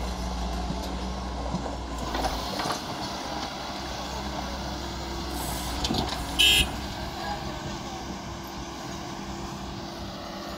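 Doosan 140 wheeled excavator's diesel engine running under load as it digs and swings soil into a tractor trolley; the deep engine hum drops about two and a half seconds in. A brief, loud, high-pitched toot sounds about six and a half seconds in.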